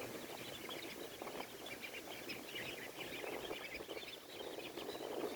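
A group of young ducks peeping, many short high chirps overlapping, with wind rumbling on the microphone.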